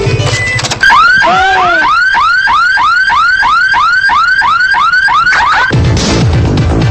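Roncar car alarm going off: a siren of quick rising-and-falling chirps, about three a second. It starts about a second in and speeds up briefly just before it stops near the end.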